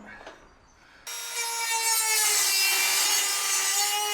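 A handheld power tool starts abruptly about a second in and runs steadily with a pitched whine, abrading the van's sheet-metal side panel down to bare metal where the brace and its adhesive were removed.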